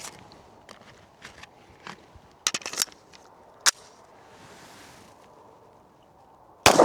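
Sharp clicks and a quick cluster of clacks about two and a half seconds in, then a single loud Glock 17 9mm pistol shot with an echoing tail at the very end.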